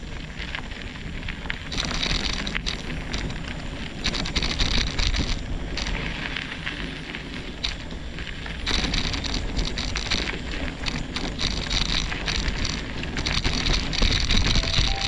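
Mountain bike rolling over rough dirt trail: tyres crackling over loose ground, the bike rattling, with a low rumble of wind on the microphone.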